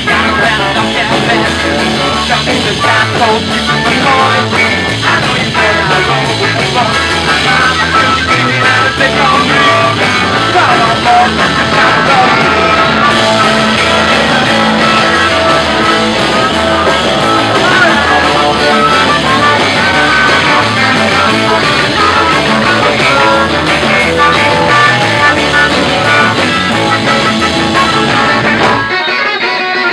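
Live rock and roll band playing loudly: electric guitars, violin-shaped electric bass and drums, with a singer. Near the end the bass and low end drop out, leaving the electric guitars playing.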